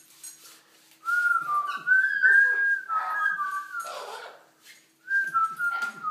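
Amazon parrot whistling a tune of clear notes that step up and down in pitch, starting about a second in, with a short break before it whistles on near the end.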